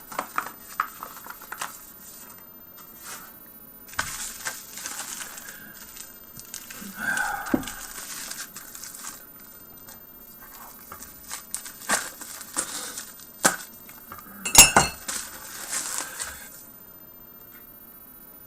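A package being handled and opened: crinkling and tearing of packaging, with scattered clicks and taps. The loudest is a sharp click late on.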